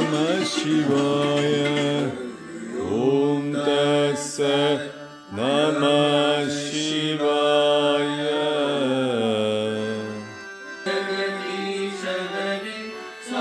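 Devotional bhajan and mantra chanting by a group of singers, played through a television: long held, gliding sung phrases over a steady accompaniment, with brief pauses between phrases.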